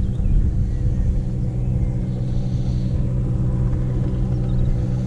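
Low rumble of wind buffeting the microphone, over a steady engine drone that holds one pitch throughout.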